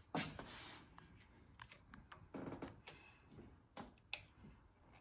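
Phillips screwdriver tightening a terminal screw on a wall light switch: faint, irregular clicks and taps of metal and plastic, with a short scrape about two and a half seconds in.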